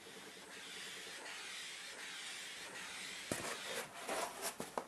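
Blow lamp hissing steadily as it is played over the wet epoxy clear coat on a balsa crankbait to pop the bubbles. From just past three seconds in, a run of sharp clicks and knocks.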